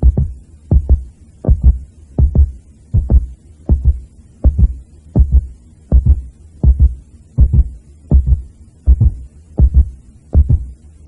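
Heartbeat-like thumping: low paired beats, lub-dub, repeating steadily about 80 times a minute.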